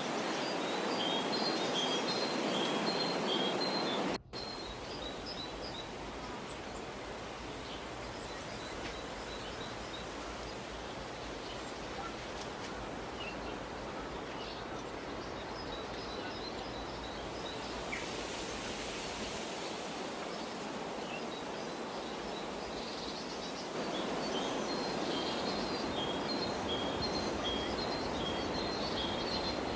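Outdoor ambience: a steady background rush with small birds chirping in quick repeated phrases, heard in the first few seconds and again near the end. The sound drops out for an instant about four seconds in.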